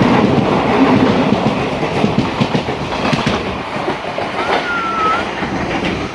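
Train running along the track, its wheels clattering rhythmically over the rail joints under a steady rumble. A brief thin whistle-like tone about four and a half seconds in.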